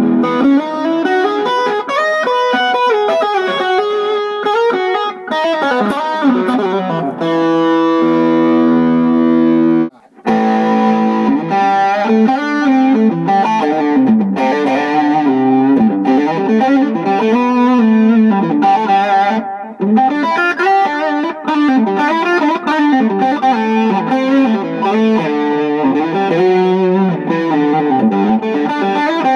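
Suhr Modern Korina Quilt electric guitar played through overdrive and echo pedals into a Dr. Z tube amp: quick, flowing lead lines with overdrive and echo, a few held notes near the middle, a very brief break about ten seconds in, then more fast runs.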